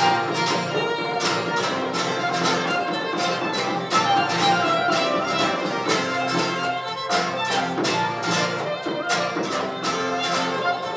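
Celtic folk tune played live: fiddles carry the melody over strummed acoustic guitars, with a steady run of regular strokes keeping the beat.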